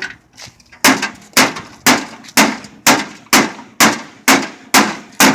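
Rubber mallet striking a microwave oven over and over, about two sharp clanging blows a second, some ten in all, starting about a second in.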